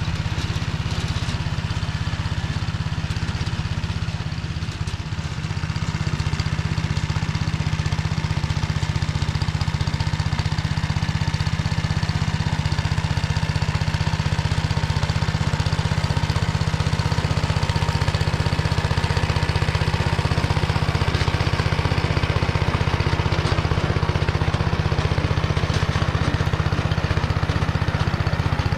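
Small tractor's engine running steadily under load while driving a Motor Sich rotary tiller through hard, dry soil, with a slight dip in level about five seconds in.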